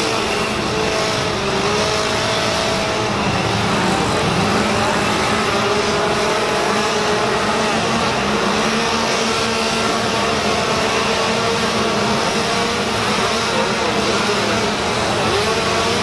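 Chainsaws running and revving, several engine pitches rising and falling over one another above a steady loud drone.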